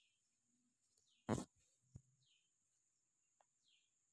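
Quiet outdoor ambience: a bird repeats a short falling chirp about once a second over a steady faint high hiss. A sharp knock about a third of the way in is the loudest sound, with a smaller knock just after.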